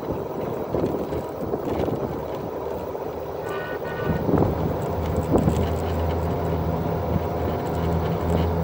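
Golf cart driving along a road: a steady rolling rumble, joined about halfway through by a steady low hum. A brief high-pitched tone sounds a little before halfway.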